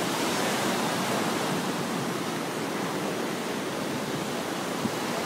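Ocean surf washing up on the beach: a steady rushing hiss.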